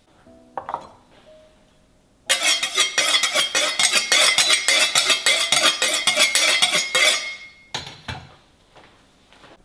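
Two steel cleavers scraped rapidly blade against blade to sharpen them: a fast run of metallic rasping strokes with a ringing edge, lasting about five seconds. A short clink comes about half a second in, and a low knock follows soon after the scraping stops.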